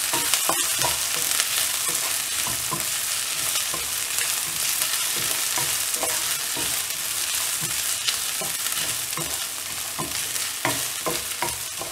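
Chopped onion, garlic and ginger sizzling steadily in hot oil in a black kadai, with a wooden spoon scraping and knocking against the pan in frequent short strokes as they are stirred and sautéed.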